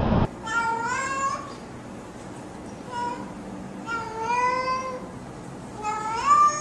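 A cat meowing: three drawn-out meows, the first and last rising in pitch, with a short faint one between them.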